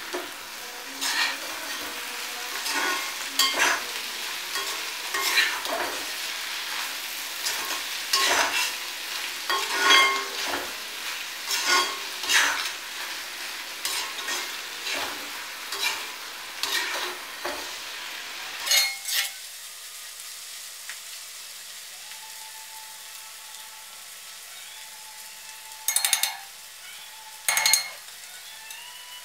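Perforated steel spatula scraping and turning clam meat frying in oil in a cast-iron kadai, about one stroke a second, over a sizzle. The stirring stops about two-thirds of the way in, leaving a steady sizzle, and two more scrapes come near the end.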